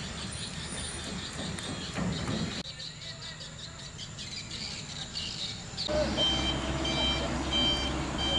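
Heavy truck engine running, with its reversing alarm beeping about twice a second from about six seconds in. Before that, birds and insects chirp faintly over a low engine rumble.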